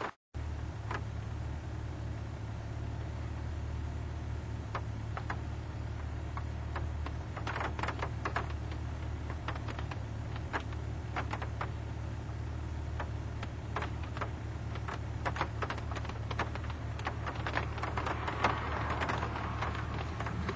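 Steady low hum of a parked car's idling engine heard from inside the cabin, with irregular crackling clicks over it that come thickest near the end.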